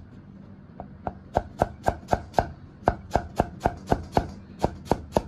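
Chinese cleaver slicing a red onion on a thick wooden chopping block: a steady run of sharp knife knocks on the wood, about four a second, after a single stroke at the start.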